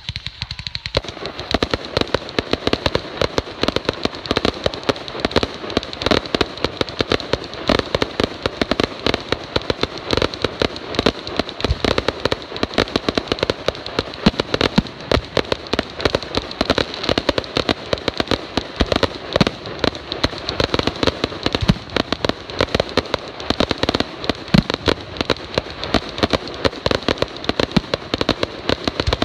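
Fireworks display firing a dense, continuous barrage: many bangs and crackles a second from aerial shells bursting and ground-launched comets, with no pause.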